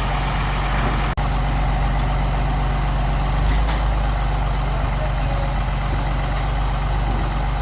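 Heavy engine running steadily at a low idle-like hum, with a brief dropout about a second in.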